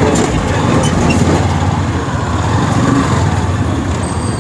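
Motorcycle engine running steadily while riding, with road and traffic noise around it.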